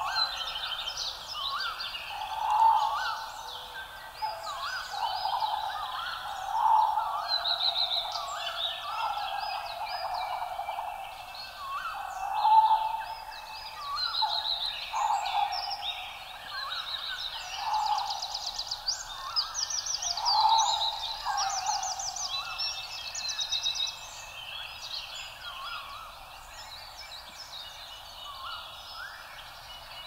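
Several birds calling over one another. Lower calls repeat every few seconds under higher chirps and quick trills, and the chorus thins out near the end.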